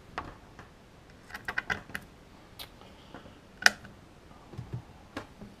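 Small clicks and taps of handling an audio cable and plugging a 3.5 mm jack into an amplifier's line-in socket. There is a quick run of taps in the first half, and the loudest sound is one sharp click a little past halfway.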